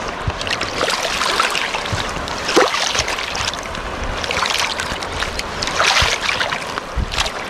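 Studded wading boots wading through shallow river water over round cobbles: repeated splashes and swishes of water around the boots with each step, over a steady rush of water.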